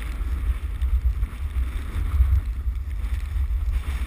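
Wind buffeting the microphone of a camera carried by a skier going downhill: a heavy, uneven low rumble, with a fainter hiss of skis sliding over packed snow.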